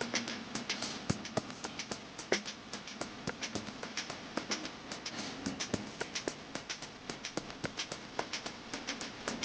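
Stir-frying fried rice: a spatula clicks and taps irregularly against the pan, several times a second, over a steady sizzling hiss.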